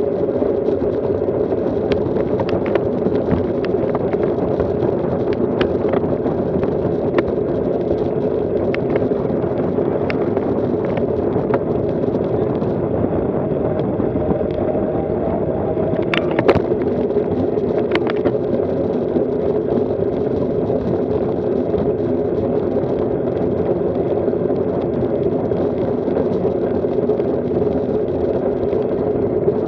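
Wind buffeting an action camera's microphone together with road-bike tyres rolling on asphalt at riding speed: a steady muffled rush, with scattered sharp clicks, the loudest pair a little past halfway.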